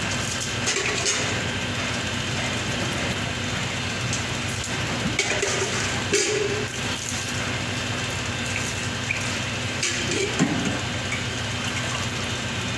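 Water poured from a small steel pot over a brass statue, splashing, with a few short metal clinks as the pot is dipped into a steel bucket, over a steady machine hum.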